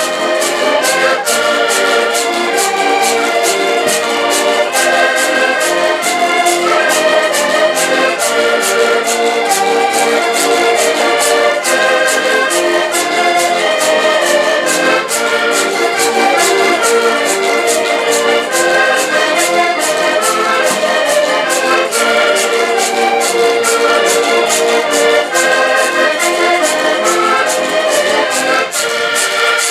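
A live ensemble of button accordions with a small guitar playing a lively Portuguese folk tune with a steady, even beat.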